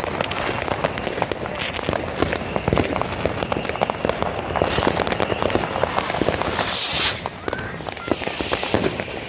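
A continuous barrage of fireworks and firecrackers: rapid, overlapping bangs and crackles from many charges at once. About six and a half seconds in, a loud hiss rises over them and cuts off suddenly.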